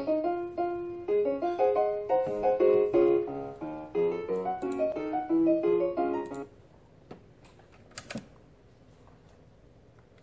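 Piano-like keyboard melody, the outro music of a video's end screen, playing through computer speakers and stopping abruptly about six and a half seconds in. A couple of faint clicks follow near the end.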